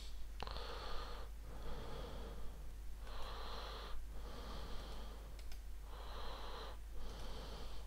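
A person breathing close to the microphone: soft, airy breaths in and out, one about every half second to a second, with no voice.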